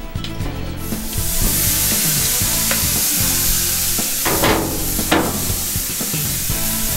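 Thick bone-in prime rib steak sizzling as it hits a very hot gas grill grate, starting about a second in and continuing steadily. There are two louder crackles a little after four and five seconds in.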